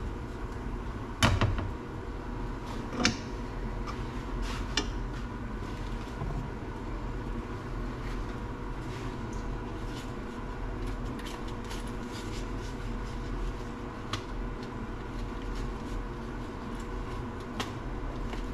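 Cookware clattering at a stovetop: a sharp knock about a second in, another about three seconds in, then a few lighter clacks, over a steady low hum.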